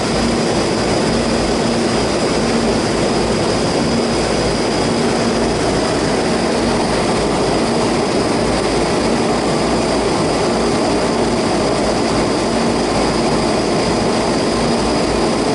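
Ducane air-conditioning condensing unit running after start-up: a loud, steady rush from the condenser fan and compressor, with a low hum that comes and goes in a steady beat. The condenser fan blade is bent and out of balance, and the unit shakes as it runs.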